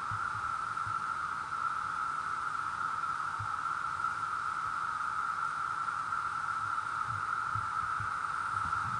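Steady chorus of Brood XIV periodical cicadas, an unbroken droning buzz massed from countless insects calling at once.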